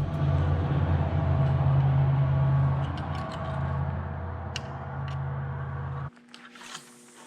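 A motor running steadily with a low hum, cutting off suddenly about six seconds in.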